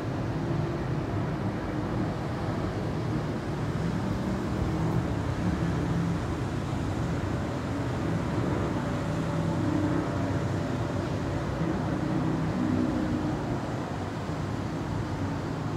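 Steady city traffic noise, an even rumble of vehicles without any single standout event.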